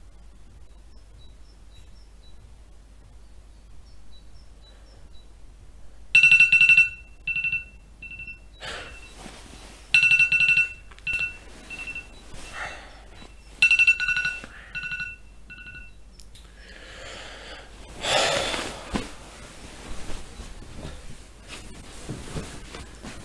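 Telephone ringing in three rounds of warbling two-tone rings, about four seconds apart, starting about six seconds in. A louder burst of noise follows near the end.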